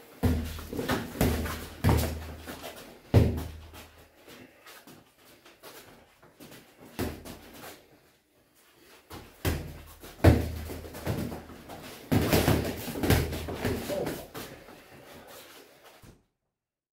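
Thuds and slaps of boxing sparring: gloved punches landing and feet stepping on the ring mat. They come in two flurries with a quieter stretch between them, and the sound cuts off abruptly near the end.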